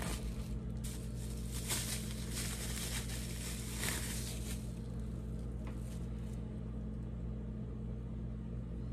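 Soft rustling and handling noises, a few faint swishes, as a small billet aluminum engine part is handled, over a steady low hum.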